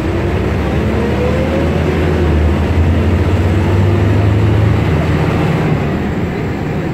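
Ikarus 280 articulated bus's diesel engine running with a steady low drone, growing a little louder around the middle. A faint rising whine shows in the first couple of seconds.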